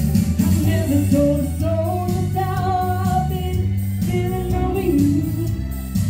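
A band playing with a singer over guitar and bass, loud and continuous.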